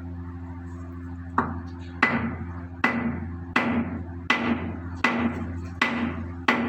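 Hammer striking metal in a steady series of about eight ringing blows, roughly one every three-quarters of a second, starting about a second and a half in, over a steady low hum.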